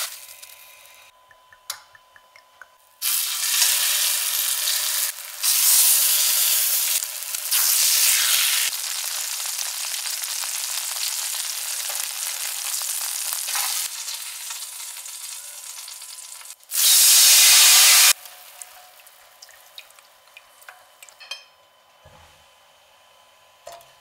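Flour-dredged cutlets sizzling in hot oil in a stainless steel frying pan. The sizzle comes in loud stretches that switch on and off abruptly, and is loudest in a short burst a little after two-thirds of the way through. After that it drops to a faint crackle.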